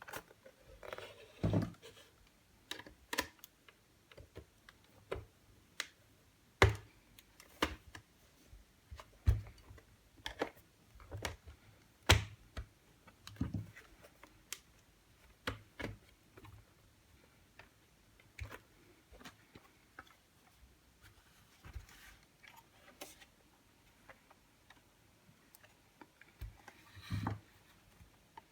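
Irregular clicks, taps and light knocks of small parts and tools being handled, at uneven intervals with short pauses between.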